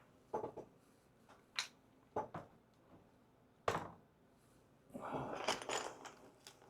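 Small objects being handled and set down: a few light knocks and clicks, then a stretch of rustling near the end.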